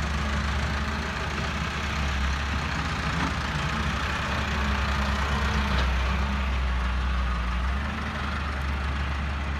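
Diesel engines of a tractor pulling a trailer and an excavator digging, running steadily as a low rumble that swells a little past the middle and eases near the end.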